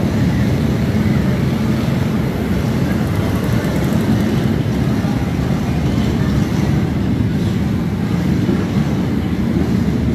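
Many motorcycle engines running together in a crowd of bikes, a dense, steady low rumble.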